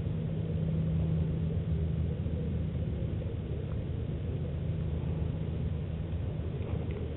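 A steady low mechanical rumble with a constant hum, as from a motor running at an even speed.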